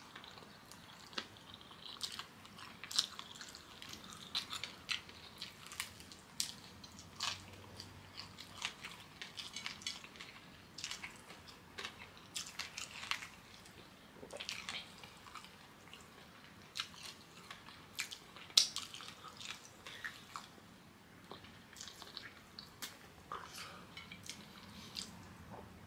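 A person chewing and eating kenkey, a dense fermented corn dough, close to the microphone: irregular mouth clicks and smacks.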